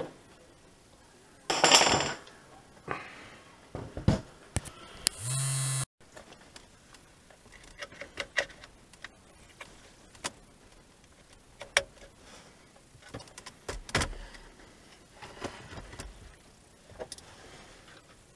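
Handling noises from a car radio head unit and its wiring connectors: scattered clicks, taps and light metallic rattles. There is a loud noisy burst about two seconds in. A brief steady hum cuts off suddenly about six seconds in.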